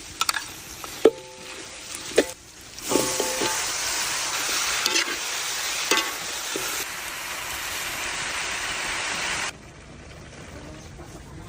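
A few sharp metal clinks of a utensil against a pan, then a steady sizzle of food frying that cuts off suddenly near the end.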